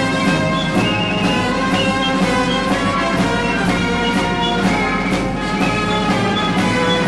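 Orchestral music with brass, played back from a 1950s two-track stereo demo tape, with a steady beat of strikes a few times a second.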